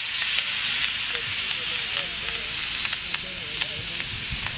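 Model rocket motor burning at launch: a loud, steady rushing hiss that slowly fades as the rocket climbs away.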